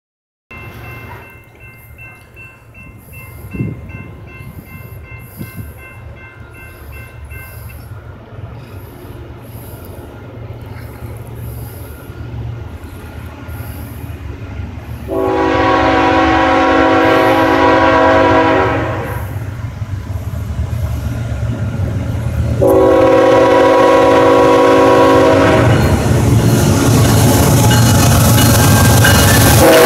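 A CSX freight locomotive's multi-chime air horn blows two long blasts, one about halfway through and a second about seven seconds later, louder as the train nears. Under the horn, a low diesel rumble builds until the locomotive is passing close by at the end.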